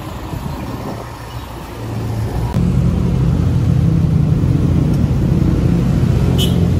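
Motor vehicle engine running with a low, steady rumble that grows louder about two and a half seconds in.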